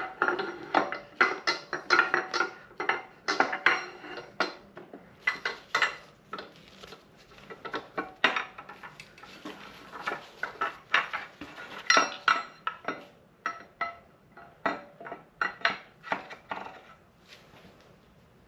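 Metal engine parts being handled and set down: many irregular, sharp metallic clinks and clatters, some with a brief ringing tone, some in quick runs.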